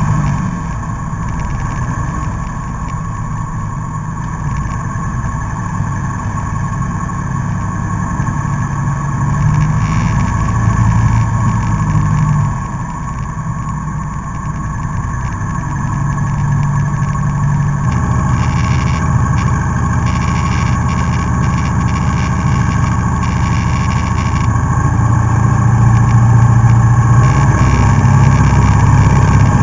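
Single-engine Cessna's piston engine and propeller, heard from inside the cockpit while taxiing on grass. Engine speed falls and rises with the throttle: it drops right at the start, swells and drops again about halfway, and builds steadily louder over the last few seconds.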